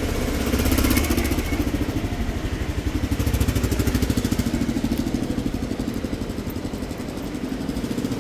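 Motorcycle engine running in street traffic, with a fast, steady exhaust pulse; it is loudest in the first half and fades somewhat toward the end.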